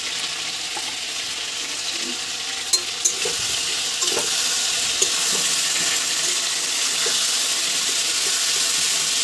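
Vegetables and spices sizzling in oil in a kadai while being stirred, a steady hiss that gets a little louder about three seconds in. A few sharp clicks, about three and five seconds in.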